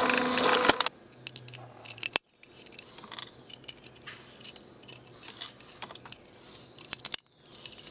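Bench drill press cutting through aluminium angle bar for about the first second. After that come light metallic clicks and scrapes as the drilled aluminium piece is handled.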